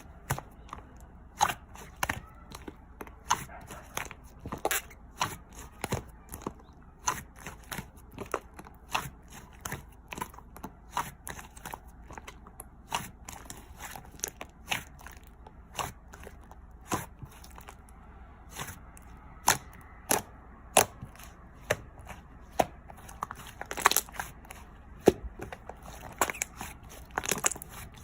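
Light-green clay slime being pressed and stretched by hand, giving irregular sharp clicks and pops about one or two a second.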